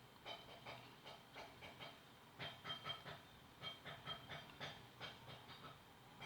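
Faint, irregular metallic clicks and clinks, two or three a second, each with a short ring: a steel washer and sway bar link parts being handled and fitted together.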